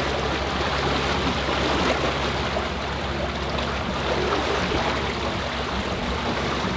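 Water rushing along a motoring yacht's hull, over the steady low drone of its engine.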